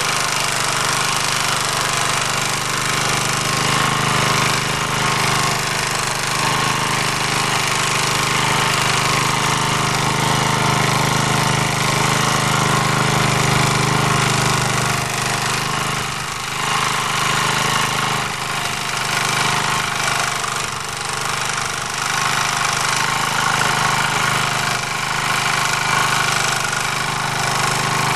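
MD3 walk-behind tractor's engine running steadily while its rotary tiller works garden soil in first gear, with brief small dips in level around the middle.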